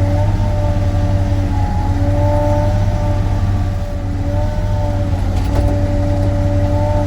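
Sany SY35U mini excavator's diesel engine running steadily, with a hydraulic whine that breaks off and returns at shifting pitches as the controls are worked while digging.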